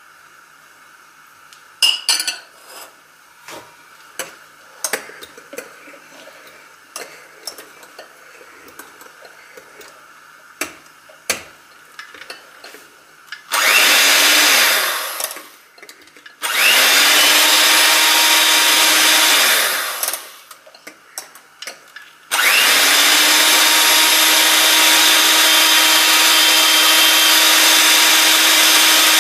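Electric hand mixer with twin wire beaters whipping cream with a milk, yolk and sugar custard in a glass bowl: it runs in two short bursts, then steadily from about two-thirds of the way in. Before the mixer starts, a spoon clicks and taps against the glass bowl.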